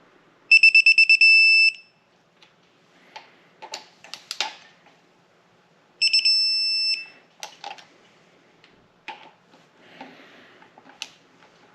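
Digital torque wrench beeping as camshaft cap bolts reach their 7.2 ft-lb target: twice, a few quick high beeps run into a steady tone held about a second. Between the beep sequences come sharp metallic clicks and clinks of the socket and ratchet on the bolts.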